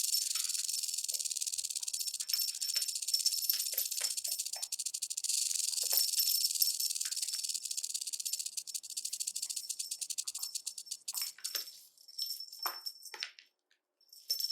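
Snake sound effect: a high, dry rattling hiss made of rapid fine clicks. It runs steadily for about eleven seconds, then breaks into a few short bursts and stops briefly before starting again at the end.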